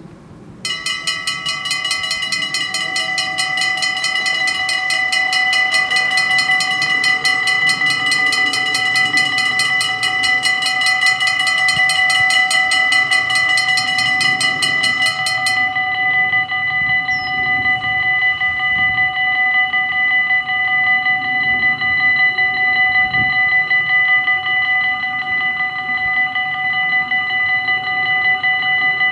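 Railway level-crossing warning bells start ringing about a second in, a loud, fast, continuous ringing while the half barriers come down. About halfway through, the fastest, highest part of the ringing stops and a steadier ringing continues.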